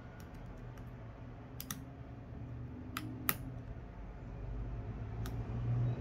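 Small hand tools clicking and tapping against a Samsung A21s phone's screws and frame while its screws are taken out: a handful of sharp, scattered clicks, the loudest about halfway through.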